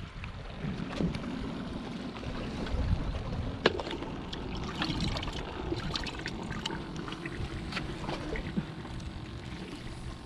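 Wind rumbling on the microphone over water washing against jetty rocks, with scattered small clicks and knocks from handling a plastic bait bucket while a small bait fish is taken out.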